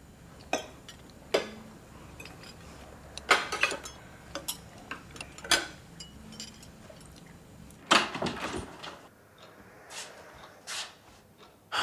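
Forks and knives clinking and tapping on dinner plates, a few scattered sharp clinks. Later, a longer rustling sound and then the clicks of a door handle as an interior door is opened.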